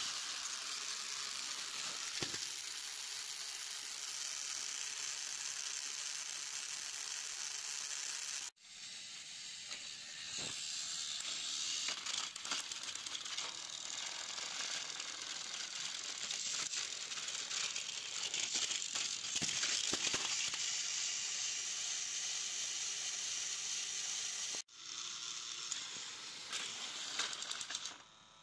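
Battery-powered Plarail toy train engines running on plastic track, their small geared motors whirring with a hissy, clicking rattle as the engines push against each other. The sound cuts off sharply twice, about 8 seconds in and near 25 seconds, and starts again each time.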